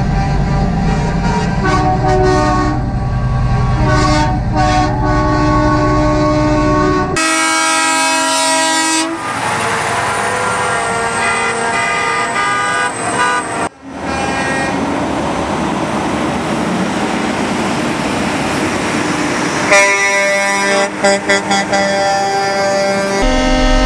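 Semi-truck air horns blaring in long blasts over the rumble and tyre noise of passing trucks, with a quick run of short toots near the end. The sound changes abruptly several times, as between separate clips.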